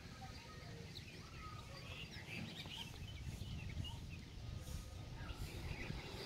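Small birds chirping and calling in short scattered notes over a steady low rumble.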